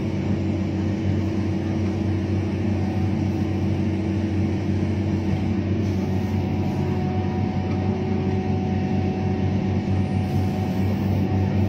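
Komatsu PC1250 hydraulic excavator's diesel engine running steadily under digging load, heard from inside the operator's cab, with a faint steady whine above the engine.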